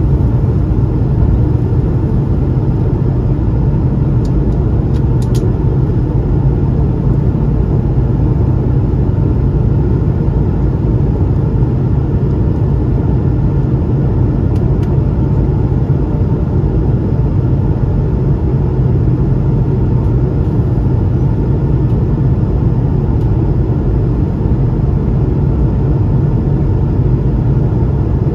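Steady cabin noise of an Airbus A220-300 in flight, heard from a window seat: a low hum from its Pratt & Whitney PW1500G geared turbofan engines. A few faint clicks come about five seconds in and again near the middle.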